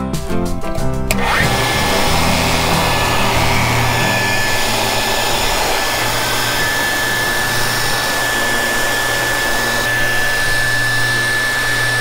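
Porter Cable PCB420SA 5-amp benchtop belt and disc sander switched on about a second in, its motor spinning up quickly to a steady high whine over a rushing hum. At the very end it is switched off and the whine begins to fall as it winds down.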